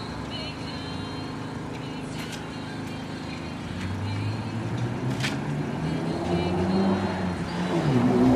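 A motor vehicle's engine comes up out of a steady urban hum and grows steadily louder through the second half, as if driving closer. There are a couple of faint sharp clicks in between.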